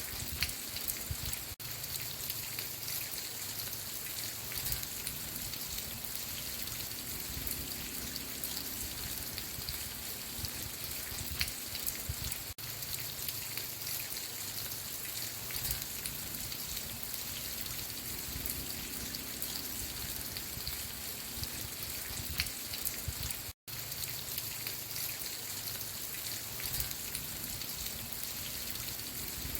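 Steady rain falling, with a dense patter of individual drops. The sound cuts out for a split second about four-fifths of the way through.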